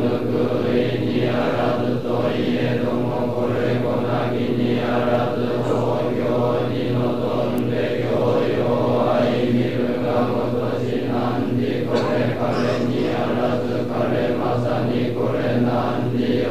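Some two hundred Zen monks chanting a sutra in unison on one steady pitch, in an even syllable rhythm.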